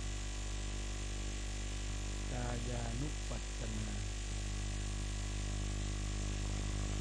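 Steady electrical mains hum with a buzz of many evenly spaced tones, unchanging throughout. A faint voice is heard briefly between about two and four seconds in.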